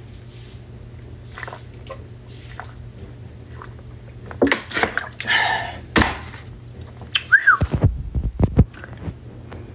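A person gulping water from a large plastic water bottle, with faint swallows at first. About halfway there are louder, noisier handling sounds and breaths, then a short squeak and a few dull thumps near the end.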